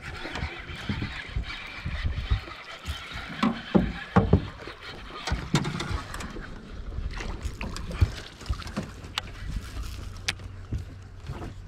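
Baitcasting reel being cranked as a hooked largemouth bass is fought to the boat, with scattered clicks and knocks over a low rumble.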